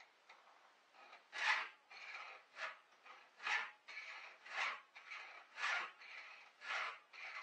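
Chainsaw chain being sharpened by hand with a round file: a rasping file stroke about once a second, six in all, each followed by a softer scrape on the return.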